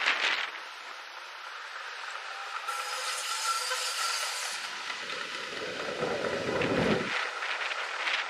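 Streetcar on street-running tracks: a hiss of air partway through, then a low rolling rumble that stops abruptly, with a thin steady high tone underneath.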